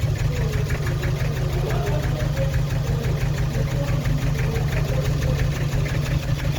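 Nissan TD27 four-cylinder diesel idling with a steady, even diesel knock. The engine is misfiring and running rough, a fault later traced to cylinder number four.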